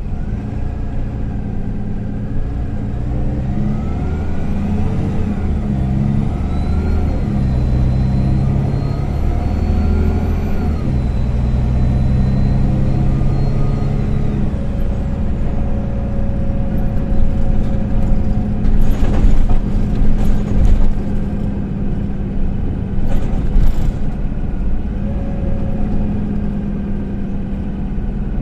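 MAN Lion's City A20 NL city bus heard from inside the passenger cabin while under way. The engine and drivetrain rise in pitch as the bus picks up speed, with a high whine that climbs, holds and dies away about halfway through, then settle to a steadier cruise. A cluster of loud knocks and rattles from the body comes about two-thirds of the way in.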